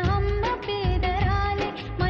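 Background music: a Bollywood-style song, a melodic vocal line over a steady percussion beat and bass.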